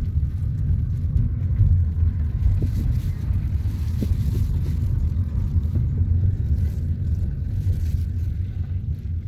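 Steady low rumble of a car's road and engine noise, heard from inside the cabin while driving on a dirt road.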